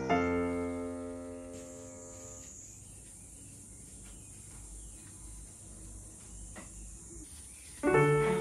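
Background music: a held chord rings and fades away over the first couple of seconds, then a few quiet seconds with only faint noise, and the music starts again near the end.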